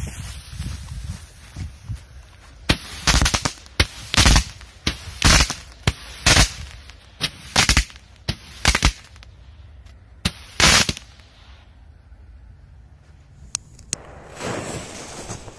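Consumer firework cake firing: about fifteen sharp bangs at uneven intervals over some eight seconds, each launching a star. Near the end, a steady hiss as the next cake is lit with a torch lighter.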